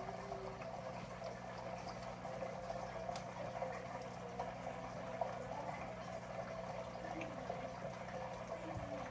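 Aquarium water circulating with a steady bubbling and trickling, over a low, even hum of the tank's pump.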